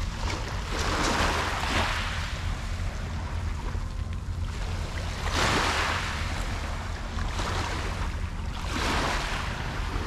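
Small waves of a calm sea washing onto a pebble beach, three swells of wash about four seconds apart, over a steady low rumble of wind on the microphone.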